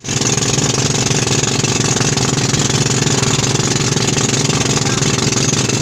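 Boat engine running steadily and loud on board, a fast, even chugging.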